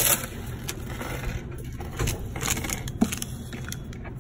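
Rustling and short knocks of money being handled in a metal pass-through cash tray at a store counter, with a burst of rustling at the start and a sharp click about three seconds in.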